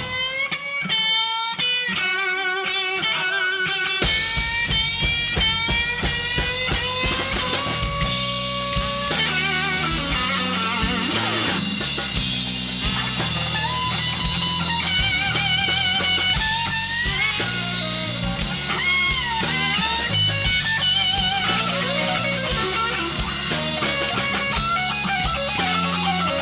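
Live slow blues played by a band: an electric guitar solo with string bends and wide vibrato. The guitar plays alone for the first few seconds, then bass and drums come back in about four seconds in and carry on under the solo.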